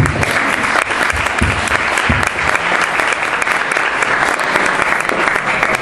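Audience applauding, a steady dense clapping that welcomes an award recipient.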